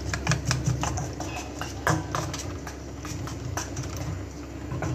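Spoon beating eggs with chopped tomato, onion and green chilli in a stainless-steel bowl: quick clicks and scrapes of metal against the bowl, fastest near the start and thinning out later.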